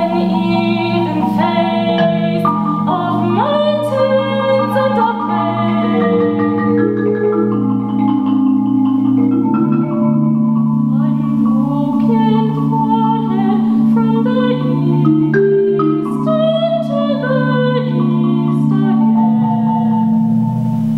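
Marimba playing low rolled chords, held by fast tremolo, under a soprano voice singing a slow melody with vibrato.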